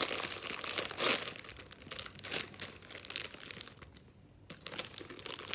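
Snack packet of potato chips being handled and crinkled, a rapid crackling with a louder rustle about a second in. It dies down briefly, then picks up again near the end.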